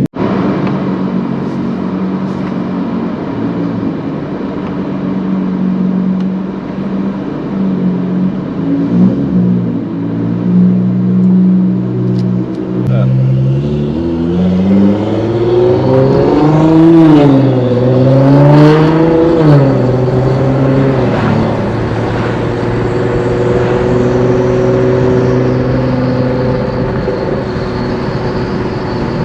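Nissan GT-R R35's twin-turbo V6 with bolt-on exhaust, running at a steady idle. About halfway through it revs up and down several times, then settles into a steadier, higher engine note.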